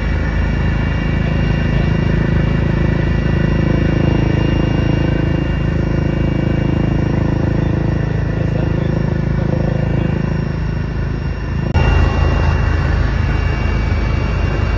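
Helicopter engine and rotor noise heard from inside the cabin: a loud, steady drone with high whining tones over it. About twelve seconds in it cuts abruptly to another stretch of the same noise, a little louder.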